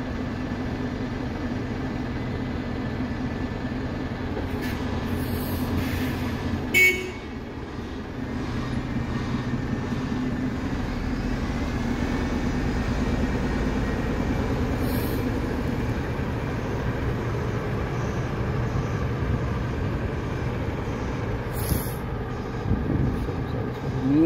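Double-decker bus engine running in a steady low drone as the bus pulls away from its stand. About seven seconds in there is a brief, loud hiss of the air brakes.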